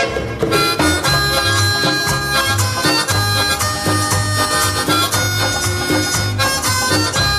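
Instrumental passage of a Hindi film song: a melody line over a bass that pulses in a steady beat.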